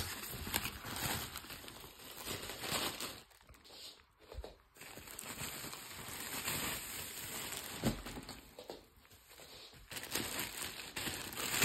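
Packaging being handled and unwrapped: a white foam wrapping sheet and a clear plastic bag rustling and crinkling in irregular spurts, with a couple of short pauses.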